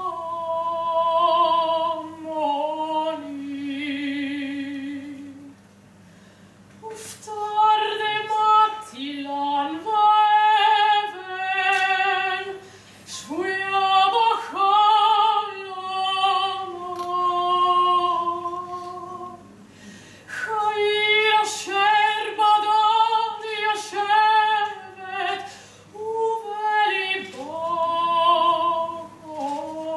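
A woman's solo voice singing unaccompanied, holding long notes with a wide vibrato, in phrases broken by short breaths and pauses.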